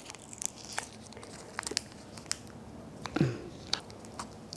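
A small plastic seasoning sachet being torn open with the teeth and fingers, crinkling in short irregular crackles, with a brief grunt-like voice sound about three seconds in.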